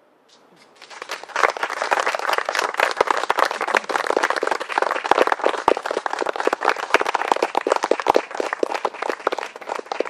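Audience applauding: dense clapping that builds about a second in and thins out near the end.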